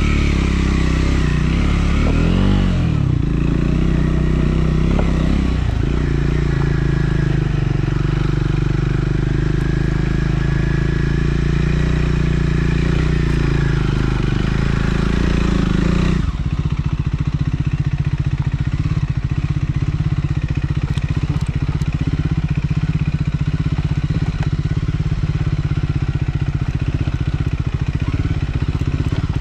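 Triumph Scrambler 400 X's single-cylinder engine running while riding. Its note dips and climbs again a few seconds in, then turns lower and duller a little over halfway through.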